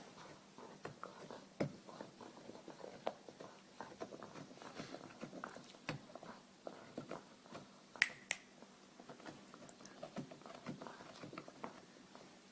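A dog gnawing on a bone: irregular small clicks and scrapes of teeth, with one sharper click about eight seconds in.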